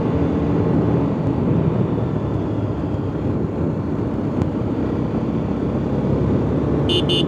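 Motorcycle riding at steady speed: the engine runs under a steady rush of wind and road noise. Near the end a vehicle horn beeps three times in quick succession.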